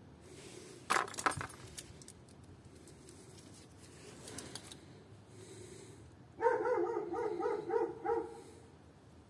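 A few light clicks and rattles about a second in, then a dog yapping, a quick run of about eight short calls lasting two seconds near the end.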